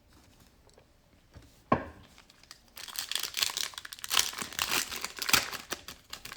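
Plastic wrapper of a Panini Prizm basketball card pack being torn open and crinkled, a dense crackling for about three seconds after a single knock near two seconds in.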